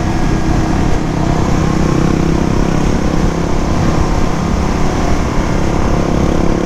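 Suzuki DR-Z400 supermoto's single-cylinder four-stroke engine running at a steady cruise on the road, mixed with rushing wind noise.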